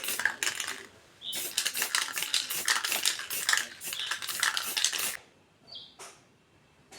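Rapid metallic rattling and clattering in quick short bursts, about three or four a second, that stops about five seconds in. A brief high chirp follows near the end.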